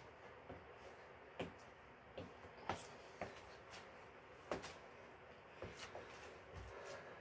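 Faint, scattered knocks and thumps of sneakered feet and gloved hands landing on the floor during slow burpees, with a duller, deeper thump near the end.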